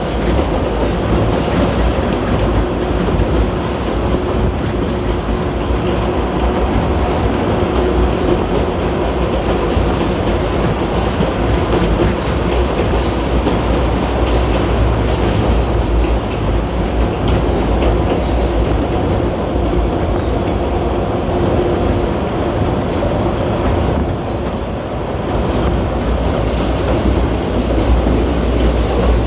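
Kurobe Gorge Railway narrow-gauge train running, heard from aboard a Ha-type passenger car: a steady rumble of wheels on the rails with the clickety-clack of the track.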